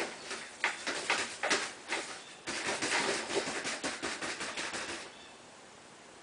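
A bird trapped inside a dryer vent duct scrabbling and fluttering against the duct, a rapid irregular run of scratches and scrapes that stops abruptly about five seconds in.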